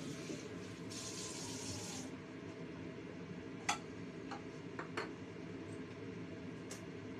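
Pork trotter and chicken drumsticks boiling in water in a wok over a gas burner: a steady bubbling hiss, brighter for the first two seconds. A few light clinks of kitchenware follow from about three and a half seconds in.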